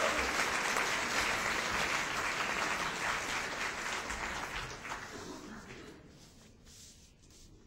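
Audience applauding, fading away over about six seconds, with a few last scattered claps near the end.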